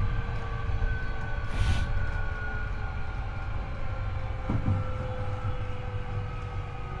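Hankyu 8300 series train running, heard from the car floor above the bogie. There is a low rumble of wheels on rail, and steady whine tones from the three-phase induction traction motors and the Toyo IGBT-VVVF inverter drift slowly in pitch. A brief hiss comes about one and a half seconds in.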